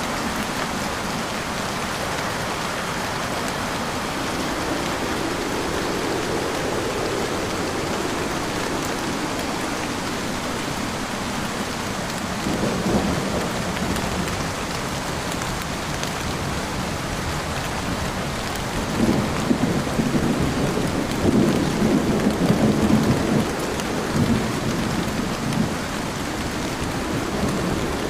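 Heavy rain pouring steadily, with rolling rumbles of thunder swelling up about midway and again through the second half.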